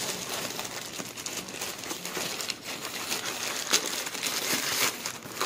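Black plastic courier mailer bag crinkling and rustling as it is handled and opened and a cardboard box is pulled out of it, with dense, continuous crackling throughout.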